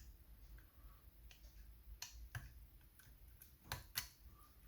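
Faint, scattered clicks of a lever-lock pick and tension tool working inside a Chubb 3G107 seven-lever lock: a couple of ticks about two seconds in and two more near the end, over near silence.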